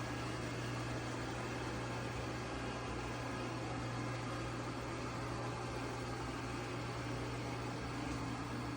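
eufy Omni C20 robot vacuum running with a steady motor hum and an even whirring hiss.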